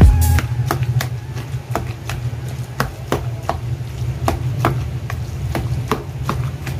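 Metal slotted ladle knocking and scraping against a plastic bowl while mixing chopped eggplant, in irregular clicks a few times a second.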